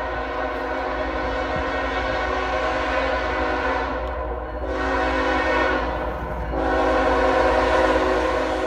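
Locomotive air horn sounding a chord of several held tones, easing twice and swelling louder just before five and about six and a half seconds in, over the low rumble of the passing train.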